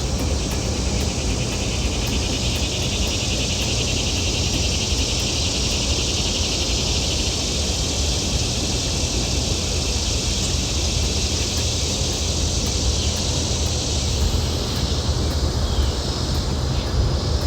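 Steady high-pitched insect chorus with a fine pulsing texture, over a constant low rumble.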